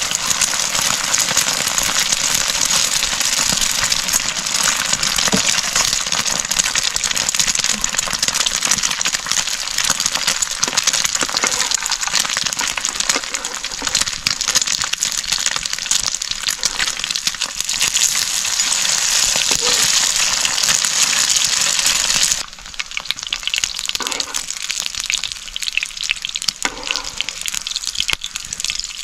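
Food frying in hot oil in a pan: a dense, crackling sizzle. It drops suddenly about 22 seconds in and carries on quieter.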